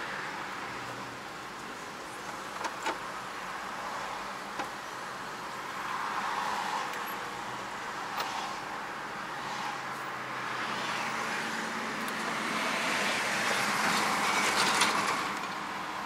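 Road noise inside a moving car's cabin: steady tyre and engine noise in traffic, swelling louder about six seconds in and again over the last few seconds, with a few faint clicks.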